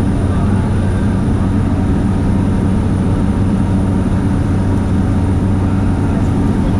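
Small aircraft's engine and propeller running with a steady low drone, its pitch unchanging.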